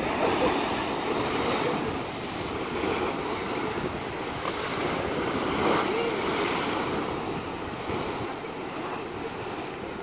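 Big sea waves bashing against a stone seawall and washing along its foot, in a continuous surf roar that swells near the start and again about halfway through.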